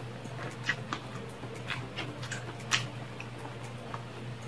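A person chewing a mouthful of rice and grilled meat with a few short wet mouth clicks and smacks, the loudest a little under three seconds in, over a steady low hum.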